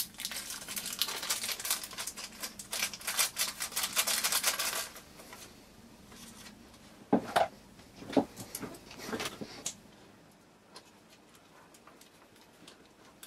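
Small clear plastic parts bag crinkling as fingers work it open and pick out the contents, then a few light knocks of small parts set down on the work mat.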